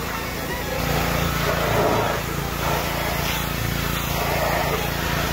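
Pressure washer running steadily, its jet hissing against a steel truck frame, the spray noise swelling and fading as the wand moves along the rail.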